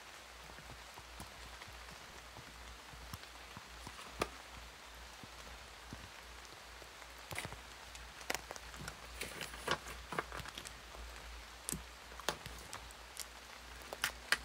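Close-miked paper stickers being peeled and placed with metal tweezers: scattered light ticks and paper crinkles, sparse at first and coming more often in the second half.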